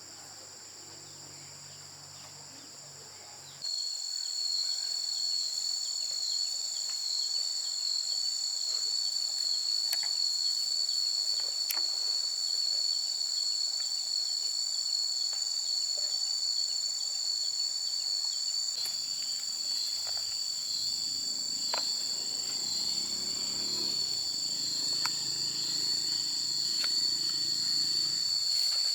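Insects chirring in a steady, high-pitched drone that jumps much louder about four seconds in, with a few faint clicks and taps over it.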